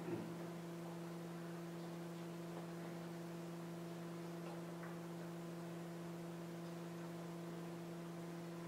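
Steady electrical mains hum, a low tone with a higher overtone, with no speech. A couple of soft clicks come right at the start.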